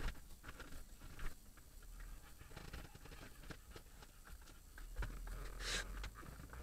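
Faint, irregular small taps and clicks, with a short hiss near the end and a low rumble underneath.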